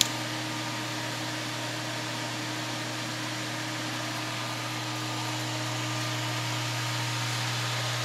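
ProTemp PT-70-SS kerosene/diesel forced-air heater's fan motor running steadily with a low hum and an airy rush, after a click of the power switch at the start. The heater is blowing cold air with no ignition yet, which the owner puts down to its high-pressure fuel pump still priming.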